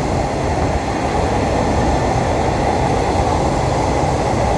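Passenger coaches of a Thai State Railway rapid train rolling past close by along the platform: a loud, steady rumble of wheels on rail.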